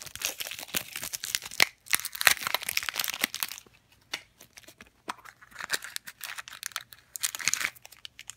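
Plastic packaging crinkling and tearing as the clear wrap and label are pulled off a plastic toy pumpkin, with a quieter spell about four seconds in. More crinkling follows as the foil blind bag from inside is handled near the end.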